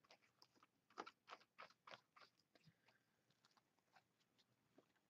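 Faint, scratchy strokes of a paintbrush spreading matte medium over a paper napkin on a journal page. The strokes come several a second at first and thin out later.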